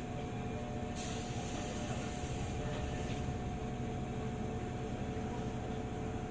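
Running noise inside a JR 205 series 600 electric train: a steady low rumble with a few held tones from the running gear. About a second in, a hiss starts suddenly and fades out about two seconds later.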